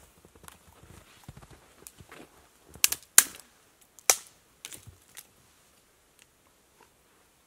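Dry dead conifer twigs being snapped off a tree trunk by hand: a few sharp cracks, the loudest bunched about three to four seconds in, with lighter crackles around them.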